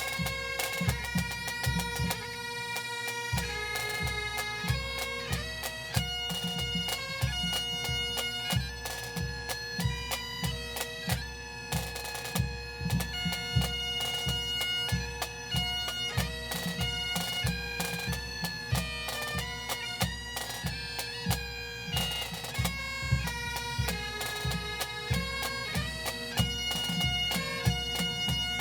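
Pipe band playing: bagpipes over a steady drone, with a melody of held notes and a regular beat of snare and bass drums. The tunes are from a medley of military songs.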